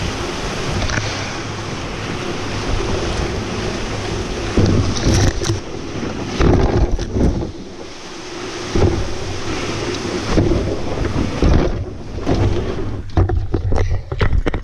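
A canoe being hauled overland by a rope through long grass and brush: the hull swishes and scrapes over the vegetation, with branches brushing along its sides in irregular louder surges. Near the end a quick run of knocks and bumps as the canoe is grabbed and handled.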